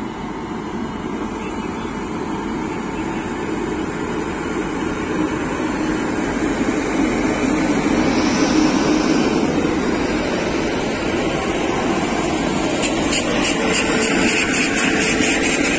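LHB coaches of an express train rolling out of a station: steady wheel-and-rail noise that slowly builds in loudness. A fast, regular clicking comes in near the end.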